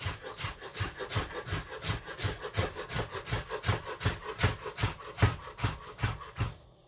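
Kitchen knife chopping celery and carrots on a cutting board in quick, even strokes, about five a second, stopping just before the end.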